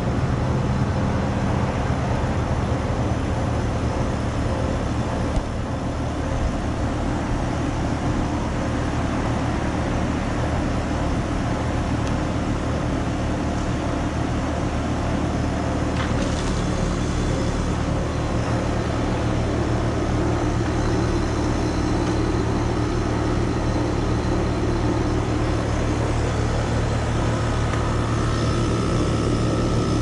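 Lennox Merit 14HPX heat pump outdoor unit running with a steady mechanical hum and rushing noise, during its defrost cycle in freezing weather. A brief click comes about five seconds in.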